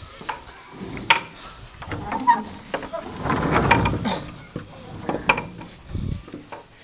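Irregular knocks, clatter and rustling as wooden barn pen boards and a gate are handled and someone moves through, with a few sharp clicks about one, three and a half, and five seconds in.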